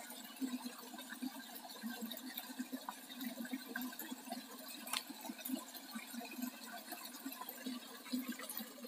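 A small stream of water spilling over a rock ledge into a pool, a steady bubbling trickle. A single sharp click about five seconds in.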